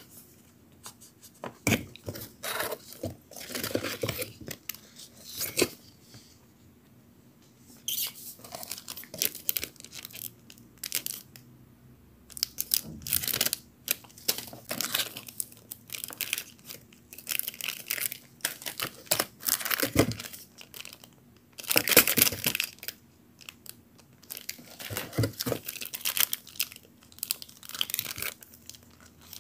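Packaging being torn open and crinkled by hand while unboxing a stationery grab-bag: irregular bursts of tearing and rustling with small clicks, broken by brief quiet gaps.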